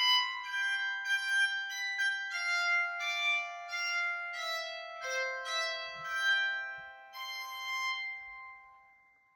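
Bowed psaltery with steel strings (a soprano model in C) played with a bow: a melody of sustained notes that ring on and overlap one another, a new note about every half second, dying away near the end.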